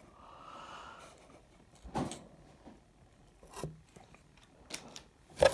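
Faint handling of a packaged fishing lure and its cardboard box: a few light taps and rustles of plastic and card as the box is moved and set down, the sharpest near the end.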